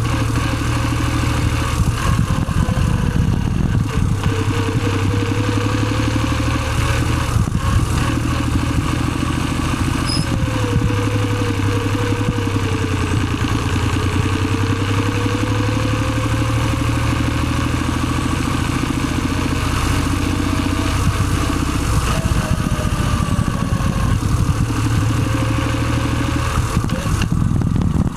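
Car engine running steadily with a thin whine that slowly wavers up and down in pitch, the abnormal noise of a faulty manual gearbox.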